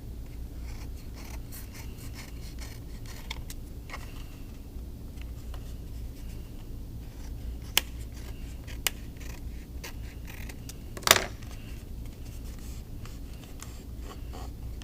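Scissors cutting paper around the edge of a paper plate: quiet, repeated snipping and paper rustle, with a few sharper clicks, the loudest about eleven seconds in.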